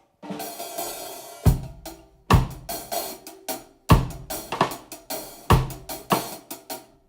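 Miked acoustic drum kit played in a groove: kick drum, snare and cymbals. It starts with a cymbal wash just after the beginning, and then the playing continues with repeated sharp hits.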